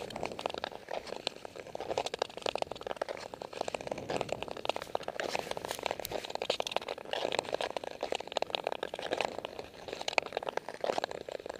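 Ice skate blades gliding and scraping over rough lake ice, a gritty, crackling rattle that swells and eases every second or two with the skating strokes.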